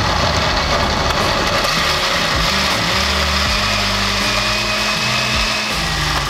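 Countertop blender running steadily at speed, puréeing cooked tomatillos and chiles with cilantro, onion, garlic and water into a green salsa. It starts to wind down at the very end.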